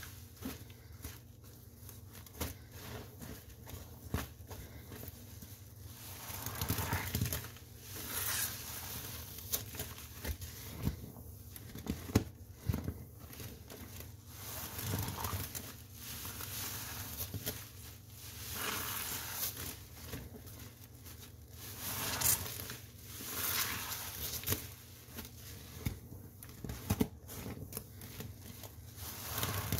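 A soapy wet sponge being squeezed over and over. Each squeeze is a short swell of noise, coming every second or two at an irregular pace.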